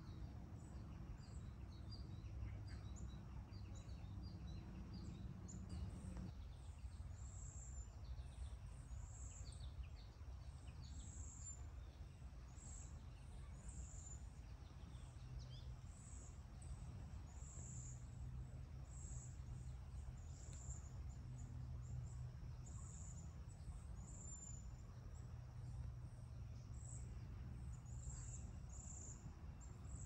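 Faint outdoor ambience: a steady low hum under scattered, distant bird chirps in the first six seconds, then high insect chirps repeating about once a second.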